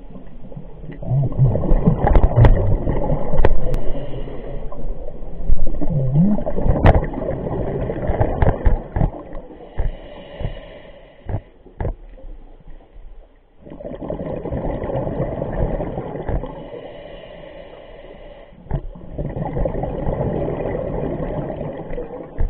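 Scuba regulator exhaust bubbles gurgling underwater, in long swells several seconds apart with quieter gaps between, and a few sharp clicks.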